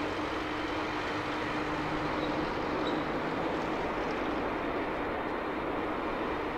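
Boeing 747-8F's four GEnx-2B turbofans heard from afar during the landing rollout: a steady, even rushing noise with a faint hum that weakens about halfway through.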